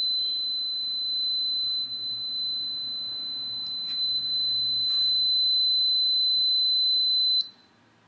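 Small electronic buzzer, driven directly by the countdown timer's 5 V TTL output, sounding one continuous steady high-pitched tone while the timer counts down. It cuts off suddenly near the end, when the countdown reaches zero and the output switches off.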